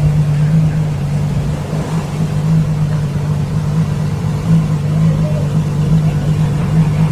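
Ferrari LaFerrari's V12 engine running at low, steady revs as the car rolls slowly past, a low, even drone that holds one pitch.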